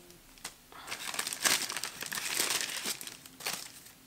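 Plastic packaging crinkling and rustling in the hands, a few light ticks at first and then a steady crackle from about a second in until near the end.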